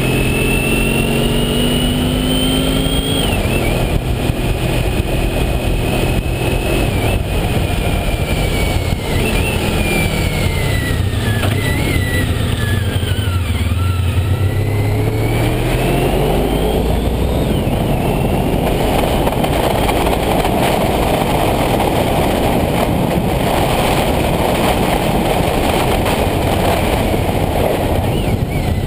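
Honda ST1300's V4 engine, fitted with Staintune mufflers, recorded on board while riding. A high whine slides down as the bike slows to about halfway through, then climbs again as it accelerates, and wind rush grows loud in the second half.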